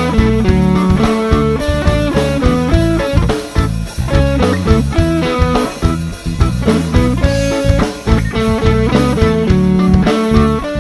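Background music led by guitar, playing a changing run of notes over a drum kit.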